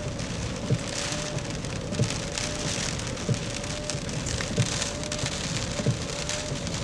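Heavy storm rain and wind noise, with a short low thump about every 1.3 seconds and a faint wavering whine underneath.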